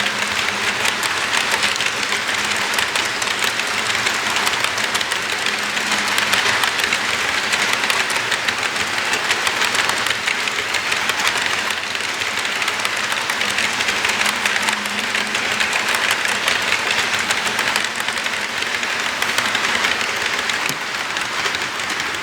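HO-scale Walthers Mainline ES44AC model locomotive running on track: a steady rushing of its motor and wheels, threaded with fast fine clicking.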